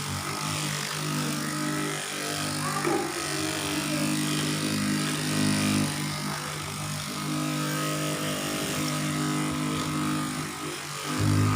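A motor running with a steady hum, turning louder and deeper near the end.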